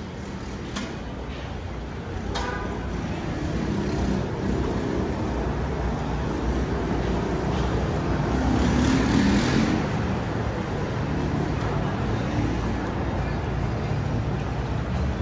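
Road traffic on a busy city street, a steady rumble of vehicles that swells to its loudest a little past the middle as something heavier passes, then eases off. A few sharp clicks come in the first couple of seconds.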